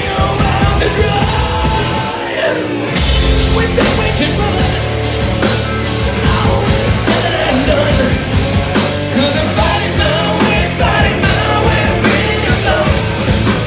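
Live heavy rock band playing an instrumental passage: distorted electric guitars, electric bass and drum kit. The band thins out briefly about two seconds in, then the full band comes back in about a second later.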